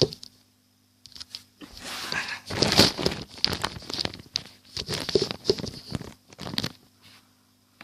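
Hands squeezing and stretching borax slime, making irregular crinkly, crackling noises in a run of short bursts.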